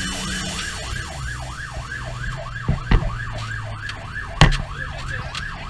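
Pierce fire engine's siren in a fast yelp, about four rising-and-falling sweeps a second, heard from inside the cab over the truck's engine running, whose note drops a little over a second in. Two loud knocks about 3 and 4.5 seconds in.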